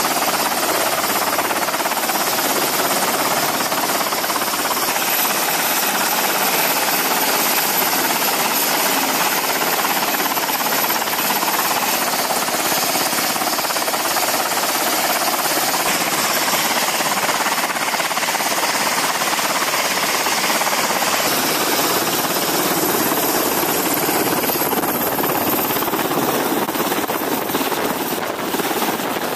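MH-60 Seahawk helicopter running on a flight deck, its rotors turning: a steady, dense rush of rotor and turbine noise with a thin high whine that rises slightly near the end as the helicopter lifts off.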